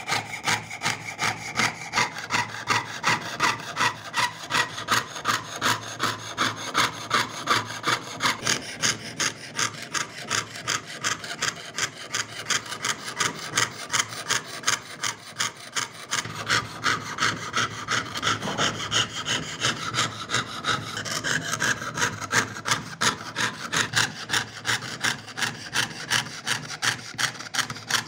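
Jeweler's saw cutting through thin metal sheet with quick, even back-and-forth strokes, about two to three a second, piercing out the background of an engraved pendant.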